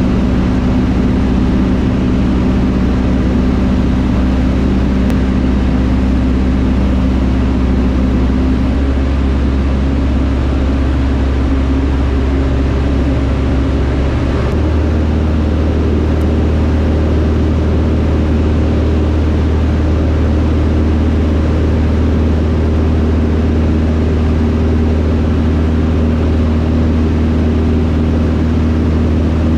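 Single-engine piston light aircraft, a Van's RV-6A, heard from inside the cockpit: a steady engine and propeller drone with rushing air. The engine note shifts about nine seconds in and steps up in pitch about fifteen seconds in.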